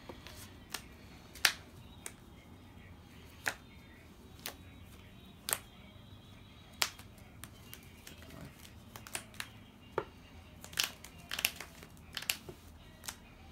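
Trading cards being handled and laid down on a playmat at a table: scattered sharp clicks and taps at an uneven pace, with a quick flurry of them near the end.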